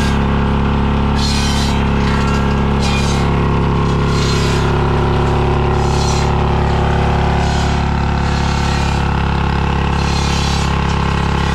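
Holder two-stroke diesel single-axle tractor engine running steadily at a constant speed, with short bursts of higher-pitched noise every second or two.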